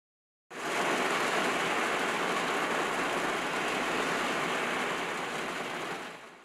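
Steady hiss of rain, coming in suddenly about half a second in and fading out near the end.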